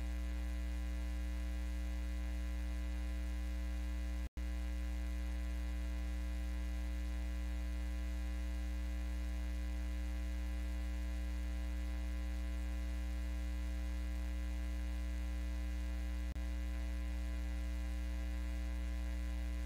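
Steady electrical mains hum on the audio feed: a constant low buzz with a stack of overtones above it, cutting out completely for an instant about four seconds in.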